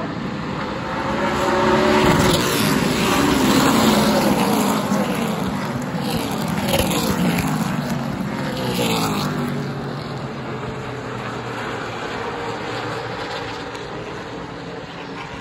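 A pack of super late model stock cars' V8 engines running past together, their notes rising and falling as the cars go by. The sound swells about two seconds in, stays loud for several seconds, and fades after about ten seconds.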